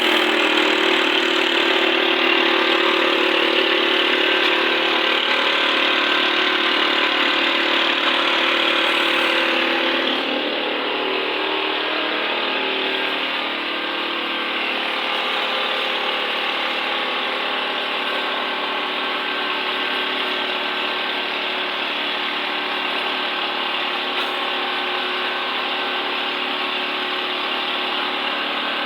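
Portable concrete mixer's engine running steadily with the drum turning, a continuous mechanical drone that drops a little in level about ten seconds in.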